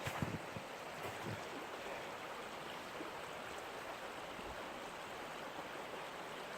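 Woodland creek rippling over rocks, pebbles and fallen branches: a steady even rush of running water.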